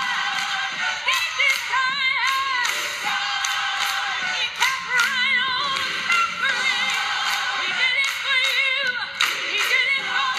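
A church mother squalling: high, wavering sung wails with heavy vibrato, over music with frequent sharp percussive hits.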